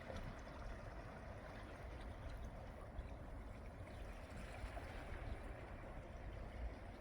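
Sea pack ice moving on the tide: a steady wash of water gurgling and sloshing among the floes, with faint scattered crackling ticks.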